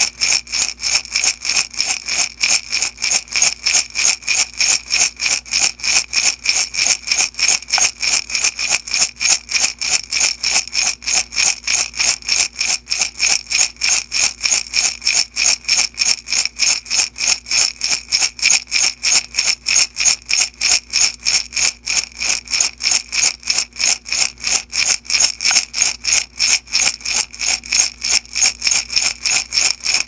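Beads shaken in a glass jar, a steady rhythmic rattle of about four shakes a second, with the glass ringing under the beads.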